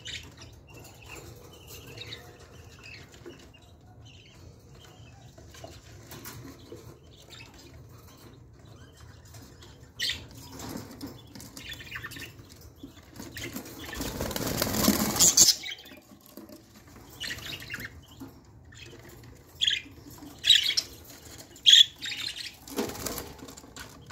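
Budgerigars chirping in their cages, with a loud burst of wing-flapping about halfway through and a few short, sharp calls near the end.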